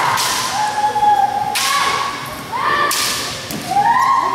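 Kendo fighters' long, drawn-out kiai shouts, rising and then held, overlapping one another, with two sharp cracks of bamboo shinai striking armour in the middle, echoing in the gym.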